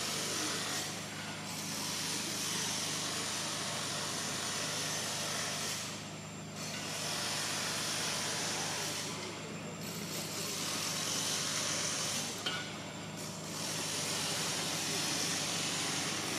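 Insects droning, a steady high hiss that fades briefly every few seconds, over a low steady hum.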